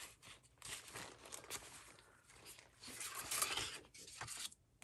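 Paper and cardstock rustling and sliding as scraps are handled, louder for a moment about three seconds in.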